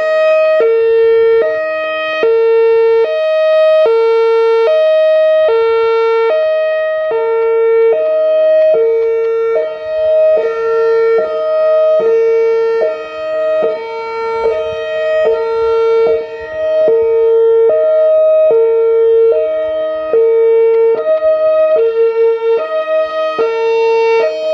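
Outdoor warning siren sounding a loud two-tone hi-lo signal, switching between a lower and a higher steady pitch about every three-quarters of a second.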